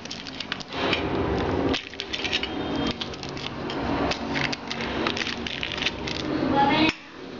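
A steel spoon clinking and scraping against a metal butter dish while butter is scooped out, with the butter's paper wrapper crinkling; many sharp clicks, with voices in the background.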